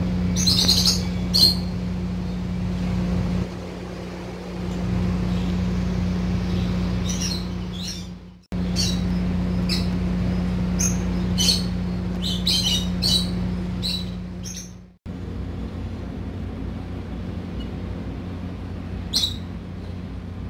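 Birds chirping in short, scattered calls over a steady low hum and rumble. The background breaks off and restarts abruptly twice.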